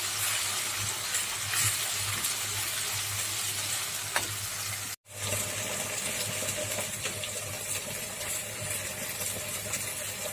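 Ginger-garlic-coriander paste sizzling in hot oil in a pan as it is sautéd and stirred, with small scrapes and ticks of the spoon. The hiss breaks off for an instant about halfway through.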